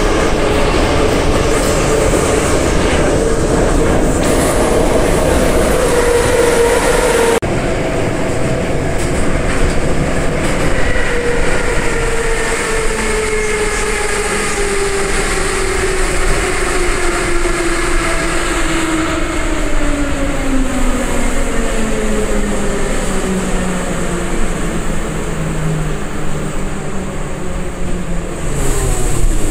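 81-717.5 metro car running with its traction gear whine, rising slightly, until the sound changes abruptly about seven seconds in. A long whine then falls steadily in pitch as the train slows into a station and almost stops near the end.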